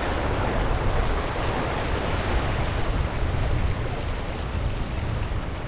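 Strong wind buffeting the microphone in a low, fluttering rumble, over a steady wash of waves.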